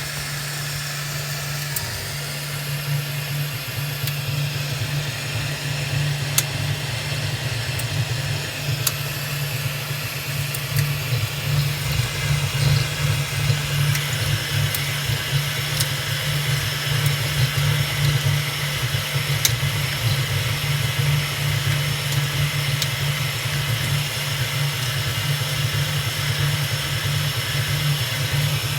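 3D printer running: a steady low hum with fan hiss over it and scattered faint ticks.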